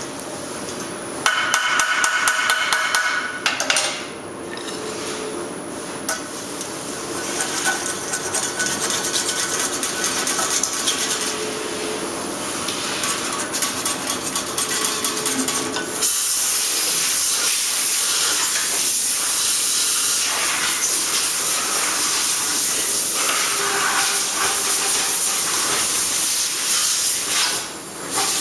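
Metal stamping workshop noise: rapid metallic clicks and clanks with a brief ringing tone near the start, then about halfway through a loud, steady hiss sets in and runs on.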